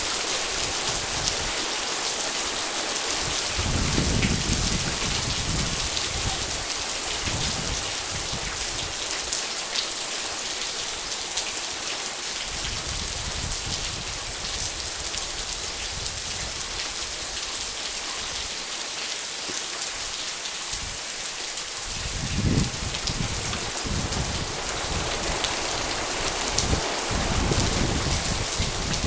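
Rain falling steadily, an even hiss of drops on surfaces, with a few short low rumbles now and then.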